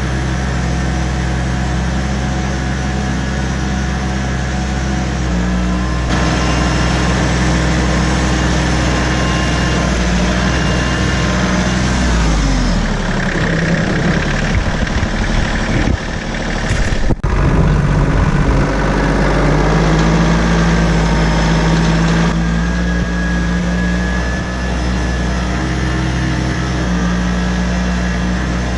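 Tractor engine running steadily while plowing snow with a loader-mounted blade. Its speed falls and then climbs again a little before halfway. The sound cuts out for an instant a little past halfway.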